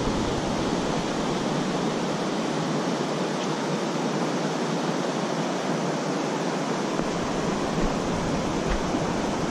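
Steady rush of a shallow creek running over a rocky riffle.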